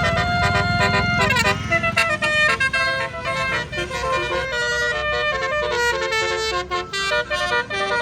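Telolet basuri multi-tone bus horn playing a quick tune, its notes changing several times a second, over the low rumble of the bus's idling engine.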